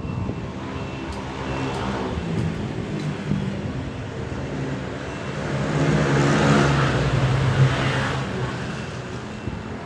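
Isuzu 6WF1 diesel engine running, revved up about five seconds in and easing back near the end.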